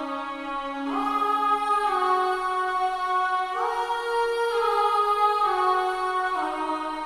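Slow sustained pad chords from a sampled virtual instrument with a soft, choir-like 'aah' tone. The chords change about every one to two seconds, with the notes sliding smoothly into each new chord.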